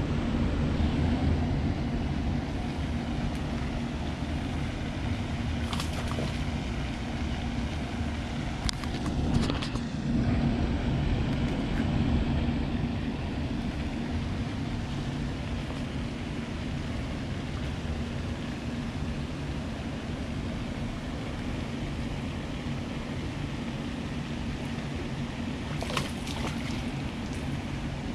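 Steady low outdoor rumble with a faint steady hum, broken by a few brief clicks.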